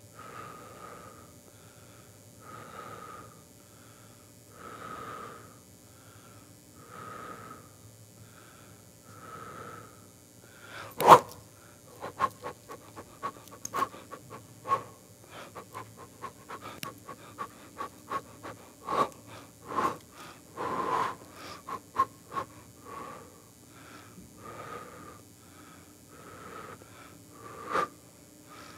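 A person breathing heavily and rhythmically, about one breath every two seconds. About eleven seconds in there is a sharp loud click, after which the breathing turns into quick, irregular short breaths mixed with small clicks.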